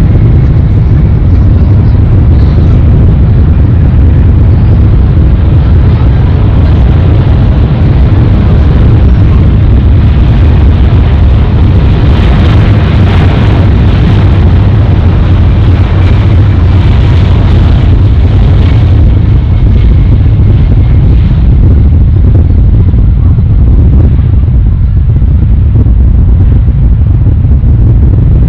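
Jet airliner engines at high power, a loud, steady rumble throughout. A whine rises at the very start, and there is more high-pitched noise in the middle, about twelve to nineteen seconds in.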